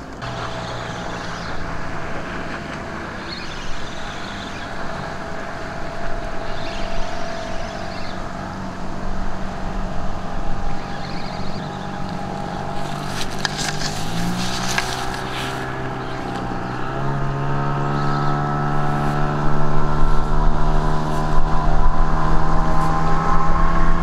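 Motorboat engine running out on the river, growing steadily louder as it comes closer; its pitch steps up twice, a little past halfway and again a few seconds later.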